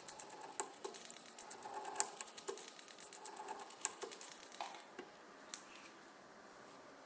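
Endodontic handpiece driving a VDW Reciproc nickel-titanium file back and forth in reciprocating motion as it shapes an S-curved canal: a rapid rattling tick with a faint high whine and a few sharper clicks, stopping after about four and a half seconds.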